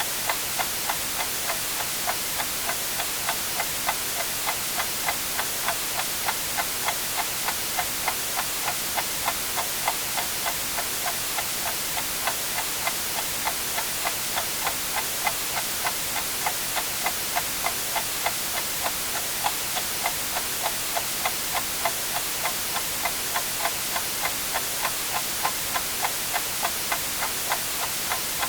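Clock ticking steadily, about two ticks a second, over a constant white-noise hiss.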